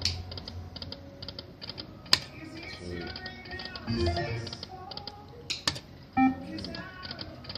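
Lightning Link poker machine playing its electronic tune with rapid runs of small ticks as the reels spin and stop, and a few sharp clicks along the way.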